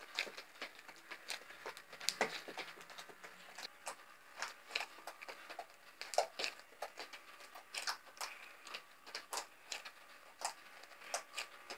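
Slime mixed with Lego pieces and beads being squeezed and kneaded by hand, giving a steady run of irregular small wet pops and clicks.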